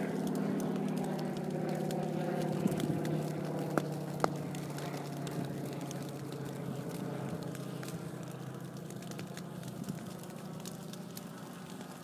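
An engine running with a steady hum that slowly fades away, with scattered sharp crackles over it, typical of burning grass.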